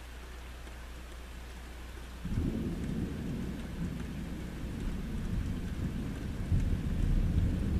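Steady rain falling, then about two seconds in a deep roll of thunder breaks in suddenly and rumbles on, growing louder toward the end.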